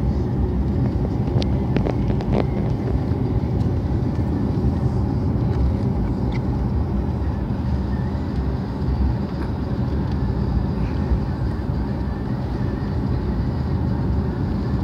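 Steady rumble of road and engine noise inside a car's cabin while driving, with a few faint clicks about two seconds in.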